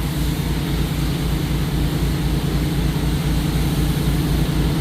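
Gas engine of a commercial pressure-washing rig running steadily, a low, even throbbing drone.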